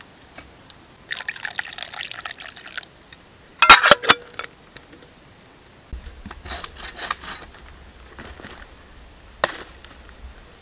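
A lidded metal pot hung on a pole over a campfire is shifted, its water sloshing, with a loud clattering knock of metal and wood about four seconds in. Then a blade scrapes and strikes dry branches as they are trimmed, with one sharp chop near the end.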